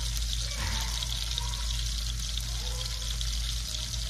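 Steady sizzling hiss from a pan of half-and-half sauce heating on the stove.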